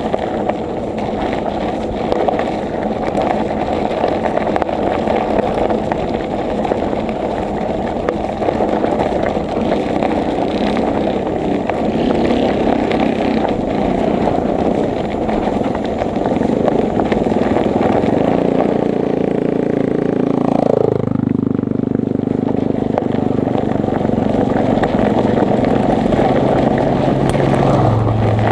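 Steady rush of wind over the microphone while riding a bicycle. About two-thirds through, a motor engine comes in, its pitch dropping as it passes, then holds a steady low hum.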